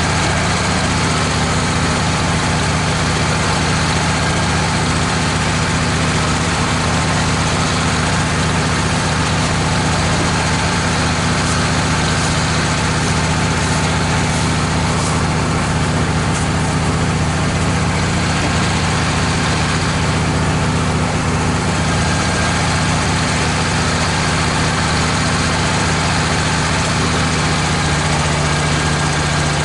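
Wood-Mizer LT15 portable band sawmill running steadily, its engine driving the band blade through a red oak log. The engine note drops slightly near the end.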